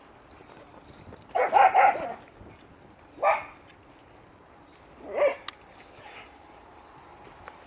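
Dog barking: a quick run of barks about a second and a half in, then a single bark, then another, each a couple of seconds apart.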